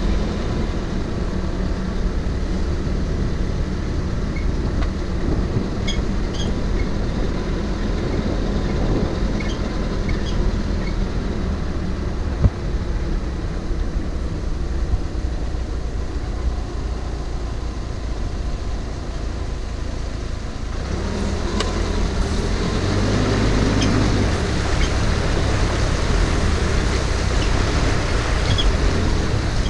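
Nissan Navara 4WD driving slowly along a rough dirt track: engine and tyre rumble with wind on the roof-mounted microphone and a few knocks from stones. About two-thirds of the way through it grows louder with a rushing, splashing noise as the vehicle enters a shallow creek crossing.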